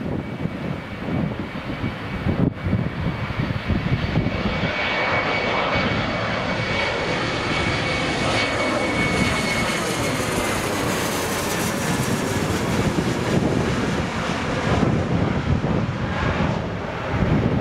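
Airliner's engines as it passes low overhead on its landing approach, building up a few seconds in and easing off near the end. A high whine holds and then falls slightly in pitch as the aircraft goes past.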